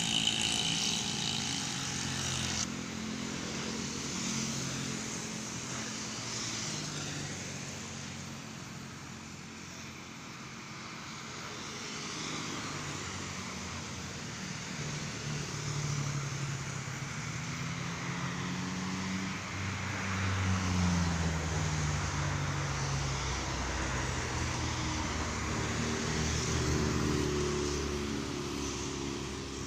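Road traffic going by: motorcycles and cars passing one after another, their engine notes rising and falling as they approach and pass. About two-thirds of the way through, a louder, lower engine passes.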